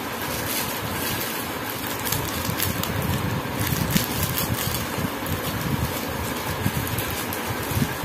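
Plastic packaging rustling and crinkling as it is handled and cut open, with short crackles, over a steady background noise.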